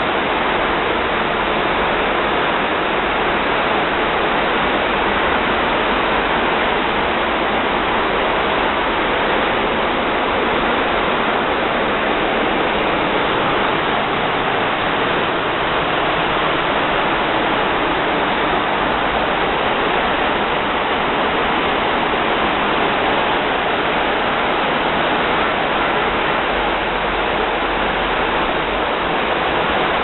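The Beas river flowing: a steady, unbroken rush of water.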